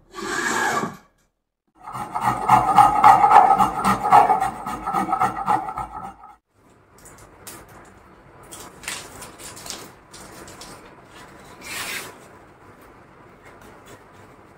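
Hand tools working a very hard red hardwood neck blank: a short hand-plane stroke, then about four seconds of loud, dense rasping with a ringing tone. After that come quieter rubbing and handling, with one short scrape near the end.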